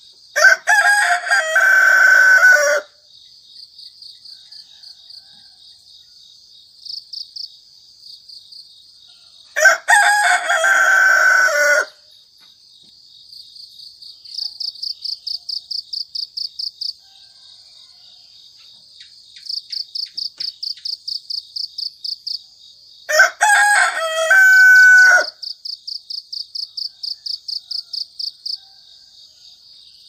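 Rooster crowing three times, each crow about two seconds long, over crickets chirping in steady trains of rapid pulses.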